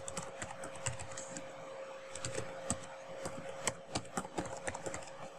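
Typing on a computer keyboard: irregular keystrokes, several a second, over a faint steady hum.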